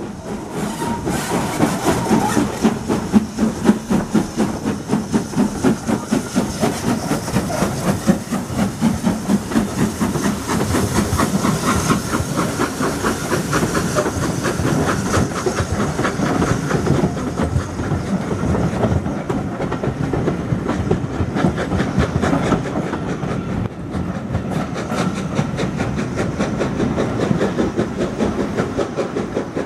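British Railways Standard 4 Class 2-6-4 tank steam locomotive pulling away with its train, its exhaust beating in an even rhythm among hissing steam. Then the coaches roll past, wheels clicking over the rail joints over a steady rumble.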